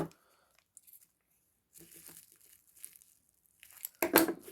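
Plastic packaging of a small battery-terminal hardware pack being handled: faint crinkling and rustling, a sharp click at the start and a louder crackle about four seconds in.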